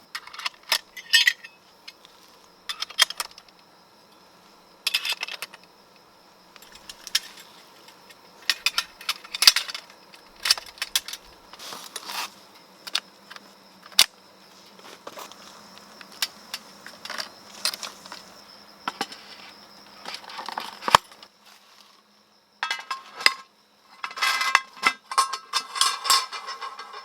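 Intermittent metallic clinking and rattling, with a dense clatter near the end, over a steady high-pitched insect drone.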